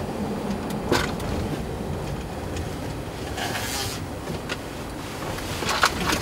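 Car cabin noise while driving slowly: a steady low rumble from the engine and tyres, with a few sharp clicks about a second in and near the end, and a brief hiss about three and a half seconds in.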